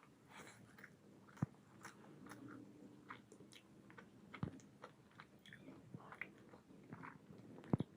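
Close-up chewing of mutton curry and fried rice: wet mouth smacks and small clicks, with a sharper click about a second and a half in and another near the end.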